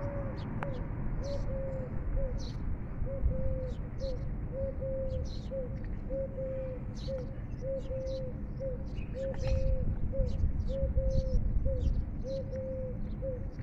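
A dove cooing over and over in a steady rhythm of a longer note followed by a short one, about once a second. Crisp, irregular ticks of a cat crunching dry kibble come with it, over a low background rumble.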